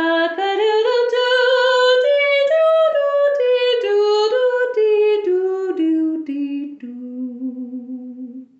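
A woman singing unaccompanied, imitating a rooster's crow as a long sung 'cock-a-doodle-doo-dee-doo' run of short notes. The run climbs, then steps down to a long held low note that cuts off near the end.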